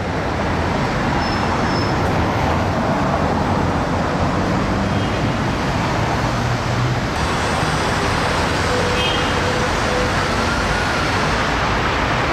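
Steady city road traffic noise, with cars running and passing close by.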